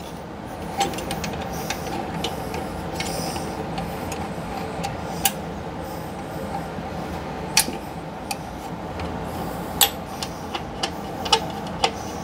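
Scattered sharp metallic clicks and taps as steel transmission parts, the band and its band struts, are fitted by hand into an aluminium Powerglide transmission case, over a steady background hum.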